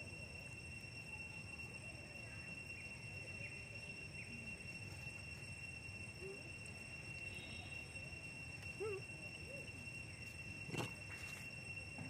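Steady, high-pitched drone of insects, with a few faint short squeaks and a single sharp click about eleven seconds in.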